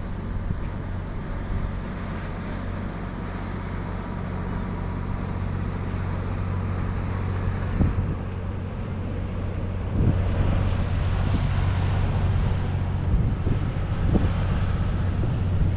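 Wind buffeting the microphone: a continuous low rumble that grows stronger about ten seconds in, with a few short thumps.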